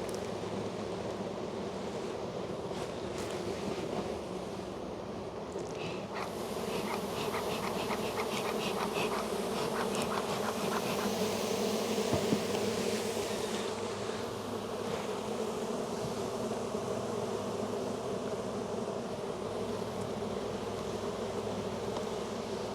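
A dense, steady hum of many honey bees around an open hive crowded with an unusually large colony. A few light clicks come through between about a quarter and half of the way in.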